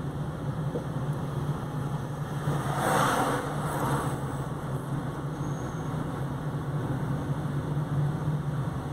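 Steady engine and road hum heard from inside a moving car, with a brief louder hiss about three seconds in.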